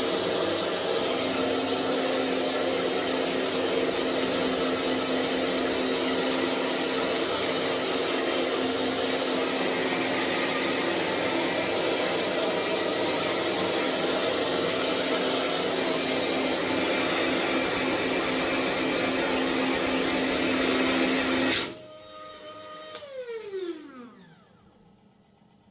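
Hair dryer blowing steadily, then a sharp click about 21 seconds in as it cuts out suddenly, its motor whining down in falling pitch to a stop. The dryer has failed: it is broken and gives off smoke.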